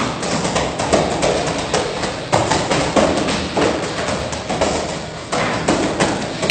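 Wooden escrima sticks clacking and thudding in quick repeated strikes over background music.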